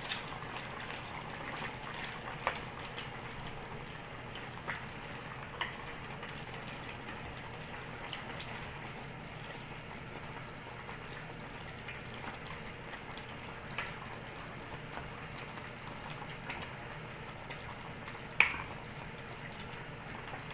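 Pot of sinigang broth simmering with a steady bubbling, while a ladle stirs cabbage down into the soup and knocks lightly against the metal pot a few times; the loudest knock comes near the end.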